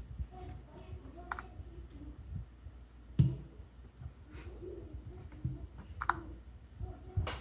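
Fingers tapping and handling a Lenovo K6 smartphone on a wooden table: scattered clicks and knocks, with a louder thump about three seconds in.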